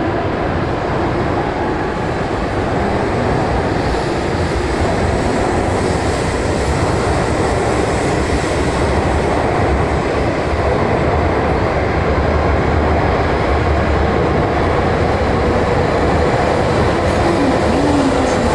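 Coupled E5-series and E6-series Shinkansen trainset moving past along the platform: a steady rumble and rush of wheels and air, growing slightly louder, echoing in the underground station.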